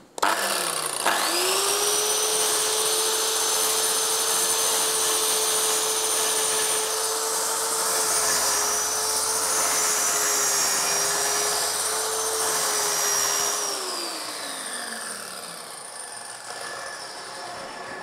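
Redstone plunge-cut circular saw on its guide rail starting up with a rising whine and running steadily as it makes a shallow 4 mm scoring cut through the melamine face of a board, the pre-cut that keeps the surface from chipping. After about thirteen seconds it is switched off and winds down with a falling whine.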